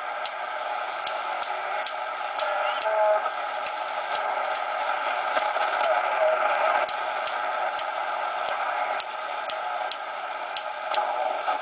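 Cobra 200GTL-DX CB radio receiving an empty band: steady static hiss through its speaker, with sharp irregular clicks about two to three a second, typical of the channel selector being clicked through while tuning.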